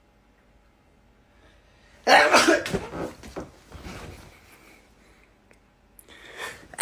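A person sneezing hard about two seconds in, with breathy sounds trailing off after it; near the end a quick rising in-breath begins the next sneeze.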